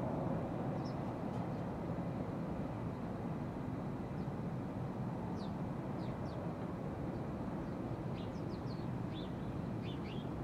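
Steady low rumble of road traffic, with several faint, short, high chirps of small birds in the second half.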